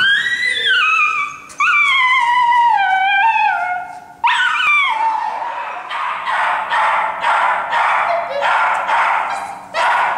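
Small dog giving excited, high-pitched yelping howls, three long calls that each fall in pitch, followed from about six seconds in by rapid barking at about three barks a second: the worked-up vocalising of a dog on an agility course.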